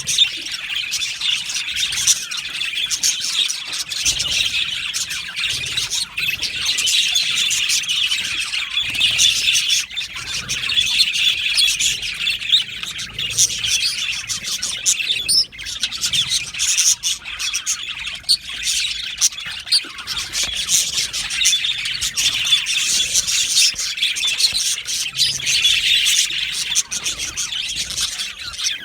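A colony of budgerigars chattering and chirping together: a dense, continuous overlapping warble of short, high chirps and squawks.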